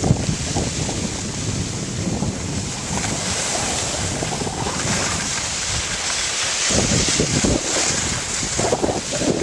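Wind buffeting the microphone of a camera carried down a ski slope, with a steady hiss of skis sliding over snow. The low rumbling of the buffeting grows heavier in the last few seconds.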